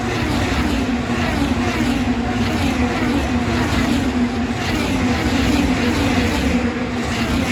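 IndyCar race cars' twin-turbo V6 engines driving past at reduced speed, a continuous drone with the pitch dropping as each car goes by.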